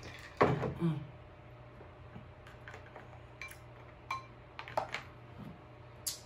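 A short vocal sound about half a second in, just after a drink of ice water. Then a few sharp clinks and clicks: a glass jar of ice being set down and king crab leg shells being handled.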